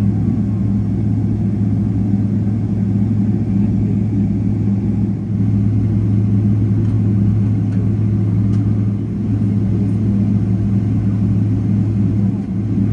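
Steady low vehicle rumble with a constant deep hum, dipping briefly about five seconds in and again near the end.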